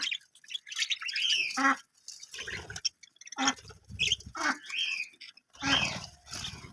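Budgerigars chirping and chattering in bursts, with short pauses between them.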